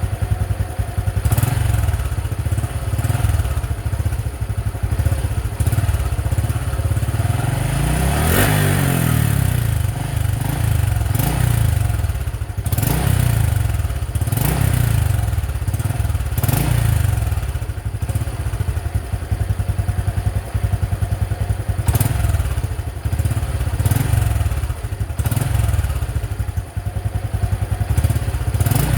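Honda XRM 125's single-cylinder four-stroke engine idling through its stock exhaust, blipped again and again. The revs rise and fall every couple of seconds, with the longest rev about a third of the way in.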